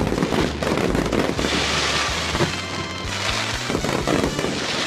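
A fireworks display: shells bursting in dense, rapid crackling, with music playing underneath.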